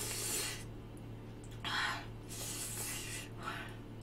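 A woman's sharp, hissing breaths through her mouth: several puffs of air, one longer near the end. She is reacting to the chilli heat of the spicy Buldak tteokbokki she has just eaten.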